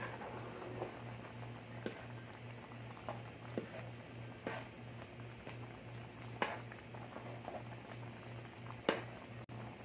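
Thick cream carbonara sauce being stirred with a spoon as it simmers in a pan, with about five sharp clicks of the spoon knocking the pan. A steady low hum runs underneath.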